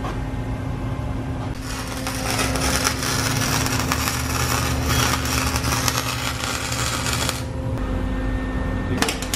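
Welding on a straight-pipe exhaust under the car: a dense crackling arc starts about a second and a half in and stops around seven seconds, then starts again near the end, over a steady low hum.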